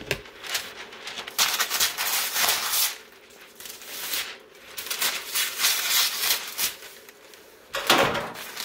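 Sheets of brown protective paper rustling and crinkling as they are handled and rolled up on a heat press platen, in several stretches, with a knock at the start and another near the end.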